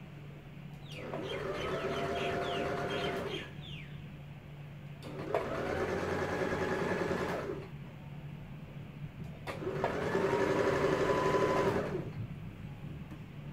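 Electric sewing machine stitching bias binding tape onto a fabric edge in three short runs of about two seconds each, its motor rising in pitch as each run starts.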